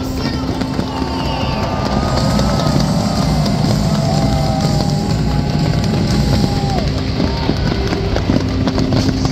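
Dense fireworks barrage: aerial shells banging and crackling in rapid, continuous succession, with music playing underneath.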